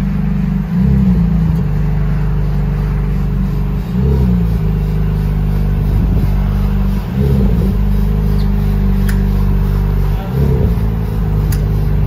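McLaren Artura's 3.0-litre twin-turbo V6 running at low revs, with four short, light throttle blips about three seconds apart as the car is inched along.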